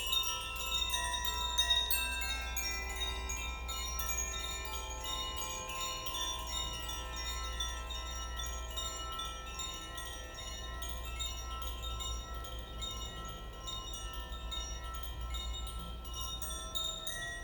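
Koshi chimes played by hand: their clappers tap the tuned rods again and again, and the many tones overlap and ring on, blending into a wash of overtones.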